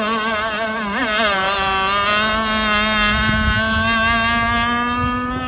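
Enforcer Stingray RC hydroplane's motor whining at speed. Its pitch wavers about a second in, then dips slightly and holds steady, with wind rumbling on the microphone in the second half.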